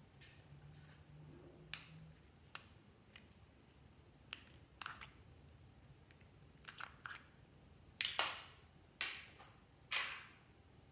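Small round plastic pots being pulled open and handled, giving a series of sharp plastic clicks and clacks. The three loudest come near the end, each dying away briefly.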